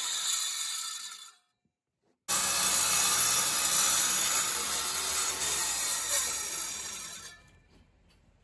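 Handheld angle grinder with a masonry blade cutting into concrete block, a loud gritty grinding hiss. It drops out abruptly about a second and a half in, comes back loud about a second later, then fades away near the end.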